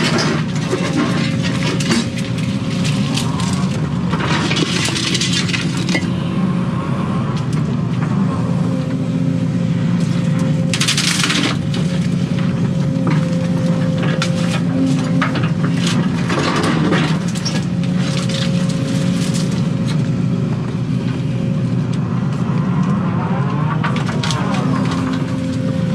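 Case excavator's diesel engine running steadily with a steady whine, heard from inside the cab, while the bucket and thumb tear through brush and roots. Branches crackle and snap in several short bursts.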